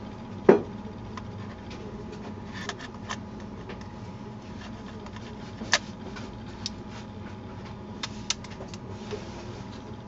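A lens adapter being fitted and twisted onto a camera's Micro Four Thirds bayonet mount: scattered sharp clicks and handling taps of metal and plastic parts. The loudest click comes about half a second in, another near six seconds, and a few small clicks come near the end, over a steady low hum.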